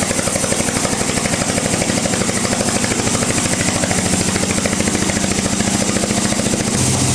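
Bandsaw running while it cuts through a log: a loud, steady machine drone with a fast, even pulsing beat. Its pitch shifts slightly near the end.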